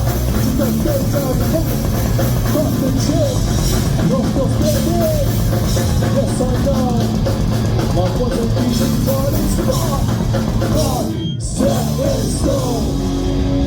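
Live hardcore punk band playing loud, with pounding drums and distorted guitars. The sound drops out briefly about eleven seconds in, then the band carries on.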